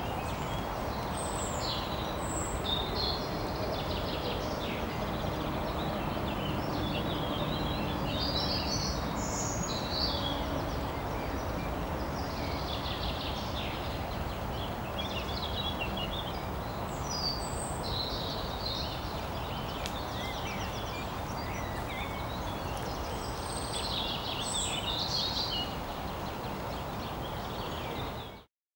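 Wild birds singing and calling, many short chirps and trills, over a steady low background noise of the open countryside. It cuts off suddenly just before the end.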